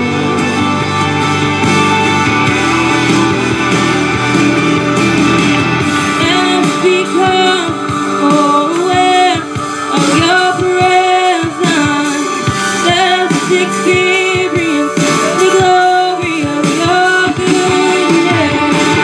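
Woman singing a slow gospel song over instrumental accompaniment. The first several seconds are held chords alone, and her voice comes in about six seconds in, with long notes and vibrato.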